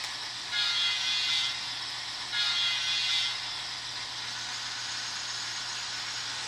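Model railway track-maintenance vehicle sounding its horn: two toots about a second long, a second apart, followed by a steady hiss.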